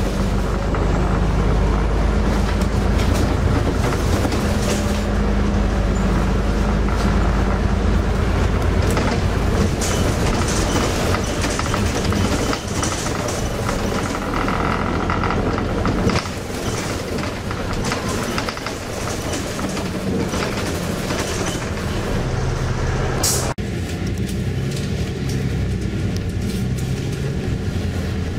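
Inside a moving bus: the engine running under steady road noise, with loose fittings rattling. Near the end the sound breaks off abruptly and goes on with less rattle.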